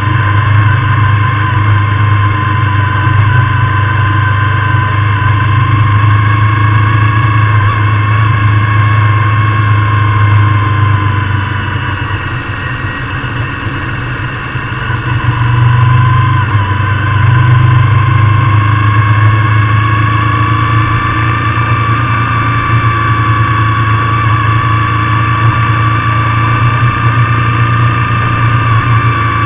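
Cruiser motorcycle engine running at road speed, heard from onboard the bike as a steady low-pitched running. About twelve seconds in it eases off for a few seconds, then picks up again.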